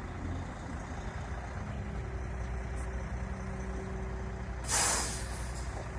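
Heavy truck engine running steadily, with a short sharp hiss of air brakes about five seconds in.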